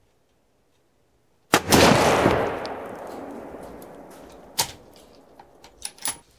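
One shot from a handloaded 6.5 PRC bolt-action rifle about a second and a half in: a sharp crack followed by a long rolling echo that fades over about three seconds. Then several sharp metallic clicks as the bolt is worked.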